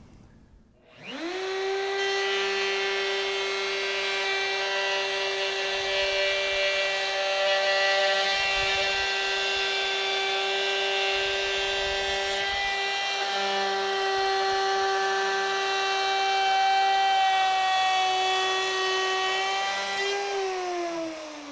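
Handheld electric router with a 3/4-inch bearing-guided pattern bit starting up with a rising whine about a second in, then running at a steady high pitch as it cuts the tenon into the board end along a clamped straight-edge jig. Near the end it winds down with a falling pitch.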